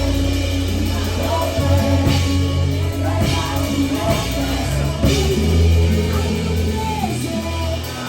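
Live gospel worship music: a band with drums and a deep, steady bass line, with singing voices over it.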